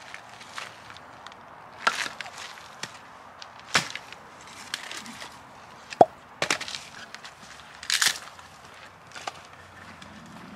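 A series of about six sharp wooden chopping strikes, spaced roughly one to two seconds apart.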